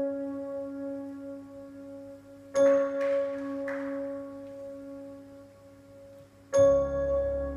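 Slow sustained chords on a stage keyboard with a bell-like tone, struck about every four seconds, each ringing and slowly fading; the chord near the end has a deep bass note under it.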